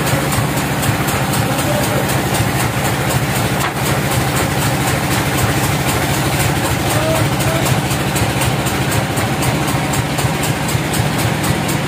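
Sawmill's engine running at a steady idle, an even low drone with no cut under way.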